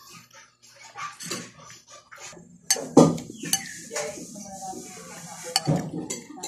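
Metal spoon and fork clinking and scraping against a ceramic bowl while mixing and scooping noodles, with a few sharp clinks about three seconds in, the loudest of them.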